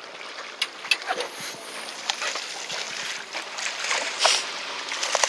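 Hooked fish thrashing and splashing at the sea surface beside the boat as it is reeled up to the landing net, among scattered clicks and water sloshing. The loudest splash comes about four seconds in.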